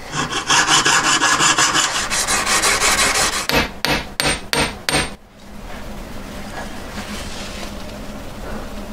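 A jeweller's piercing saw cutting metal at a wooden bench peg in quick, even strokes. Then five sharp hammer strikes on a ring resting on a steel bench block, followed by a quieter stretch with a faint low hum.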